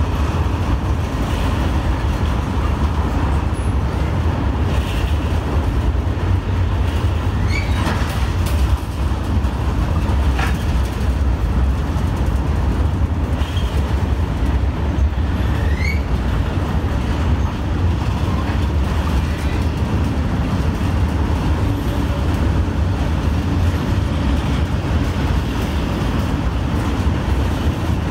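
Steady low rumble of a train in a railway station, with a few short high squeaks.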